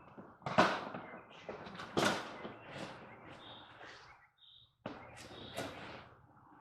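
Grain being scooped with a cup from a feed container: a few sharp knocks and rattles with rustling grain between them.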